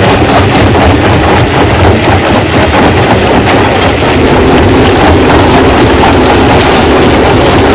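Rock crushing machine running at full level: a steady heavy mechanical din with a low hum and constant clattering of stone.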